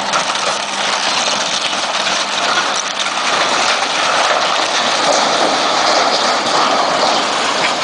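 A timber-and-sheet-metal tower is pulled over by a crane and breaks up as it collapses, giving scattered cracking over a loud, steady rushing noise.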